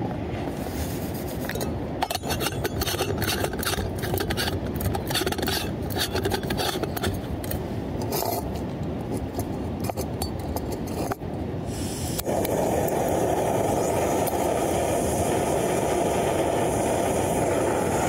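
Metal scraping, rubbing and clinking as a stainless steel stovetop coffee maker is filled with grounds and fitted to a small gas canister stove. About twelve seconds in, a steady rushing sound starts and holds: the canister stove's burner lit under the pot.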